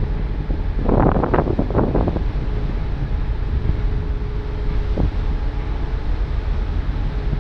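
Wind buffeting the microphone on an open ferry deck over the steady low drone of the ship's engines, with a brief louder gust-like burst about a second in and a single knock about five seconds in.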